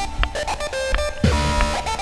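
Electronic dance music soundtrack, with stuttering synth notes and a heavy bass hit about a second in.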